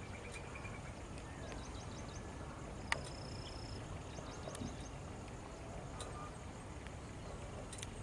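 Outdoor ambience: a steady low background rumble, with faint short chirps of small birds scattered throughout, including a brief trill about a second in. About three seconds in there is a single sharp click, followed by a thin held whistle.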